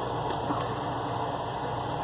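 A ZhouYu 6-in-1 mini lathe's small DC motor running at a steady speed, with a light tick about half a second in.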